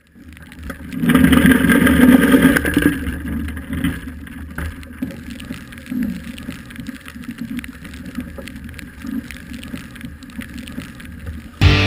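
Boat and water noise picked up by a camera on a Hobie 21 catamaran's mast: louder for the first couple of seconds, then a lower steady noise with scattered light knocks.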